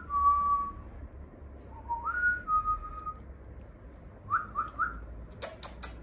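Whistling: two drawn-out notes that each swoop up and then hold steady, then three quick rising chirps, used to call a cockatiel over. A quick run of four sharp clicks comes near the end.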